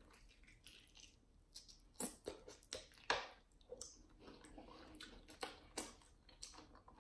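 Faint close-miked chewing of a honey barbecue fried chicken wing: irregular short, wet mouth clicks and smacks, a few each second.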